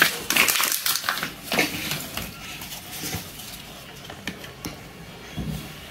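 Crinkling of a thin wrapper being handled for about two seconds, then a few light clicks and taps of plastic toy parts being picked up and fitted.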